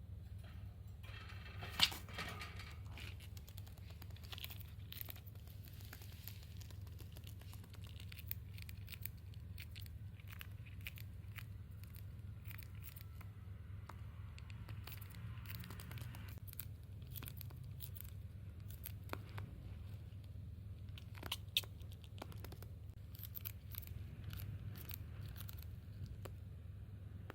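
Pet parakeet biting and tearing at a cabbage leaf: scattered small crunches and clicks, with a sharper click about two seconds in and another about twenty-one seconds in.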